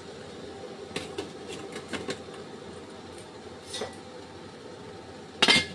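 Light metal clinks from a stainless-steel idli steamer and its plate stand, then a louder metal clatter near the end, over a steady low hum.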